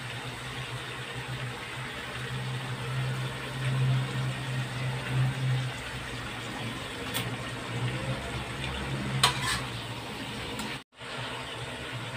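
Pork intestines sizzling and simmering in a wok over a gas burner: a steady low rumble of the burner under a constant frying hiss. There are a couple of light clicks partway through, and the sound cuts out for an instant near the end.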